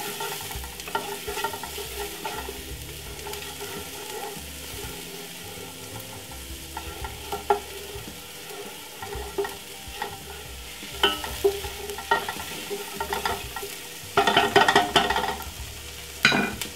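Chopped onion, spring onion and garlic frying lightly in a little oil in a pot while a wooden spoon stirs and scrapes them, with scattered small clicks of the spoon on the pan. Near the end comes a louder clatter lasting about a second, then one more short knock.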